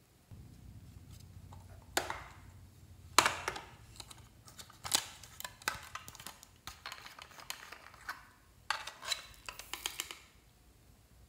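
Hard plastic clicks and light rattling as a plastic container is handled and opened, then small star sequins are shaken out of it into a hand. There are two sharp clicks about two and three seconds in, and a quick patter of rattles near the end.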